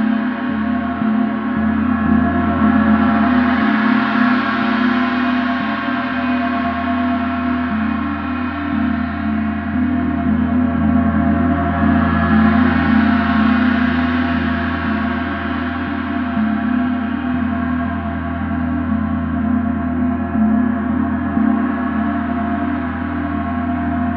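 Paiste symphonic gong ringing in a long, dense sustained wash over a steady deep hum, swelling louder and brighter twice, about four and about thirteen seconds in.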